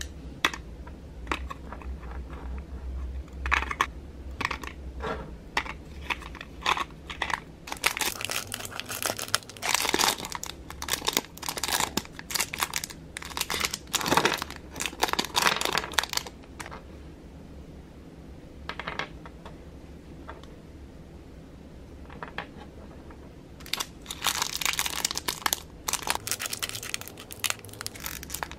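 Small clear plastic bags crinkling as they are handled and opened, in two long spells, with scattered light clicks and taps of small plastic pieces and a little cardboard box between them.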